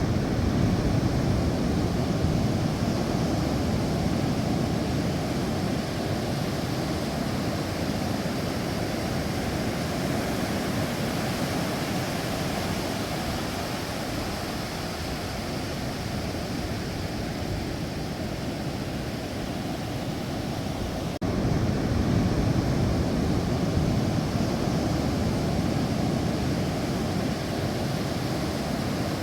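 Sea waves washing onto the shore: a continuous rushing that slowly swells and ebbs, heaviest in the low range, with a sudden jump in loudness about two-thirds of the way through.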